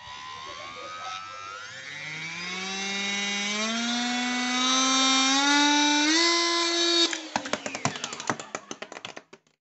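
Small electric motor driving a miniature diesel-engine model, whining and speeding up in steps so the pitch climbs over about seven seconds. It then cuts off suddenly and a run of sharp clicks and rattles follows, fading out.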